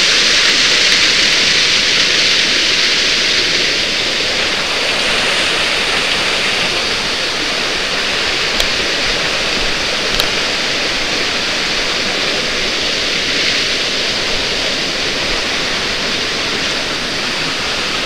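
Small waterfall pouring into a rock pool: a steady rush of falling water, a little softer after about four seconds. Two faint ticks near the middle.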